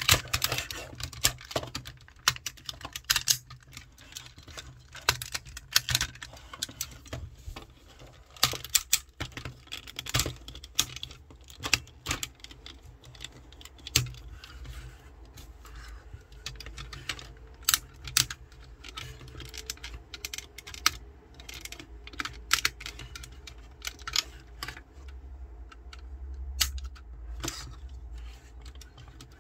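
Plastic parts of a Tobot transforming toy robot clicking and clacking as it is transformed by hand. The irregular snaps come from joints and panels being folded and locked into place.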